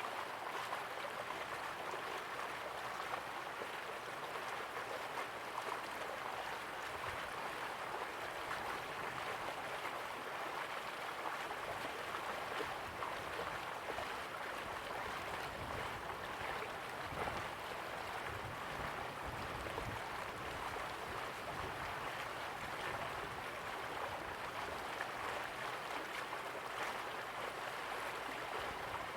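River water flowing, a steady even rush and babble.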